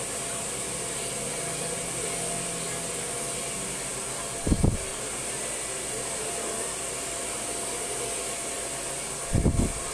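Handheld hair dryer blowing steadily, with a faint steady whine. Two brief low thumps come about four and a half seconds in and again near the end.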